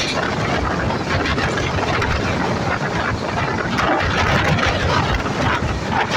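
Indian Railways passenger coach running fast, about 130 km/h, through a station: a steady loud rush of wheel-on-rail noise and wind at the open coach window, with irregular rattling clicks from the track.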